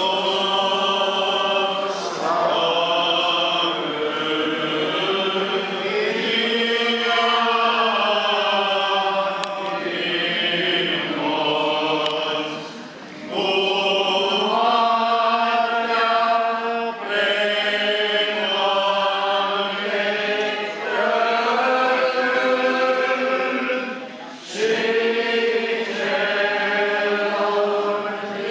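Orthodox liturgical chant sung by a group of voices in long held phrases, with short breaks about 13 and 24 seconds in.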